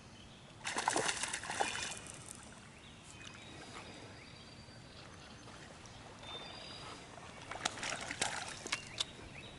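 A hooked rainbow trout splashing and thrashing at the surface of the creek, in two bouts: one about a second in and another near the end.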